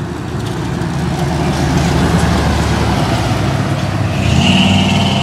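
Car engines and exhausts running as cars drive past on a street. Louder about four seconds in as one car passes close, with a high steady tone over its engine note.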